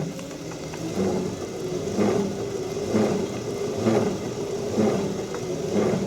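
Helix HLT 2500 lateral trainer being pedalled, with a grinding, vibrating noise from the left pedal that swells about once a second, once per pedal cycle. The noise comes when the left pedal passes from the 3 to the 9 o'clock position, weight on it or not, and is the sign of a fault in the machine's left side.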